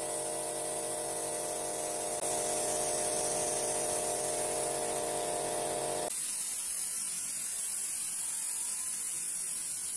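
Compressed-air paint spray gun hissing steadily while spraying, over the steady hum of a small piston air compressor. About six seconds in the compressor hum stops abruptly and only the spray hiss goes on.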